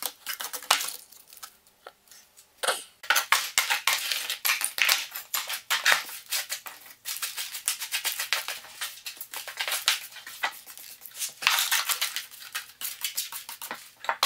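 Hand brush sweeping broken plaster and brick rubble along bare floorboards at the foot of a wall: quick gritty scratching strokes, with bits of debris clicking and clattering. There is a brief pause about a second in.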